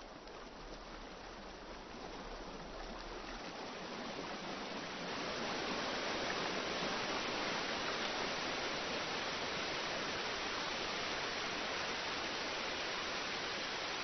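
Rushing floodwater of a torrential mountain stream, a steady hiss of running water that grows louder over the first five seconds and then holds even.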